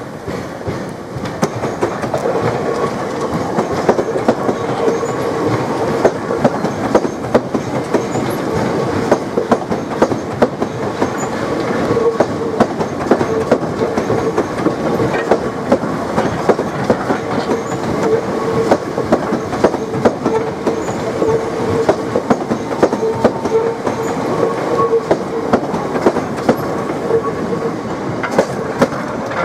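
Southeastern Class 465 Networker electric multiple unit passing close at low speed, its wheels clicking over rail joints and pointwork. A steady motor hum sounds under the clicks from about two seconds in.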